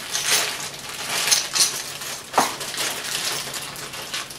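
Small steel Allen wrenches (hex keys) clinking against each other as they are handled, a handful of sharp metallic clicks and taps.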